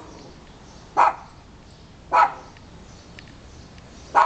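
Small dog alert-barking at a neighbour, with three sharp single barks spaced a second or two apart.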